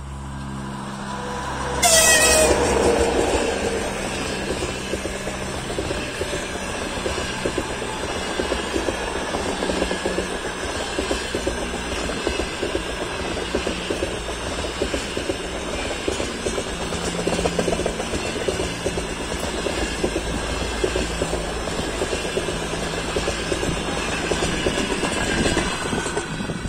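An EP20 electric locomotive's passenger train passing at speed. About two seconds in, the locomotive goes by with a sudden loud rush and tones sliding down in pitch. A long, steady clatter of coach wheels over the rail joints follows and eases off near the end.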